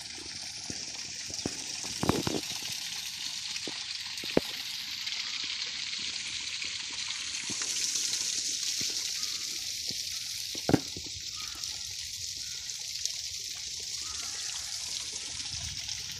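Steady rush of falling water from a small waterfall, with a few short sharp knocks, the loudest about ten and a half seconds in.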